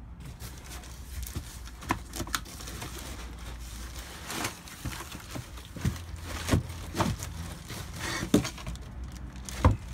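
Cardboard box and plastic packaging being handled while a circular saw is pulled out of them: rustling and crinkling with scattered knocks and thumps, the loudest knock near the end.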